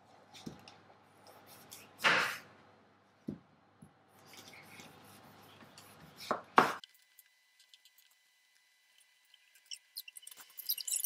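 Chef's knife cutting through a whole pumpkin on a cutting board: scraping cuts and knocks as the blade breaks through and hits the board, loudest about two seconds in and again just past six seconds. A run of light clinks near the end.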